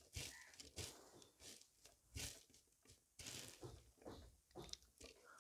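Faint, scattered soft sounds of fingers mixing rice with mashed neem leaves on a plate and picking up a mouthful.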